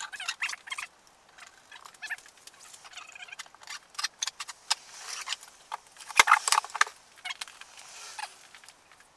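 Metal threaded rods being handled against drilled wooden boards: irregular clinks, rattles and scrapes, with a few sharper knocks. The loudest knock comes a little past six seconds in.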